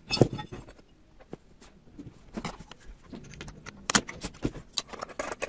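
Screwdriver and aluminium housing parts of a washing-machine inverter motor clinking and knocking as its screws are undone and the end cover is taken off, a string of sharp, irregular metallic clicks.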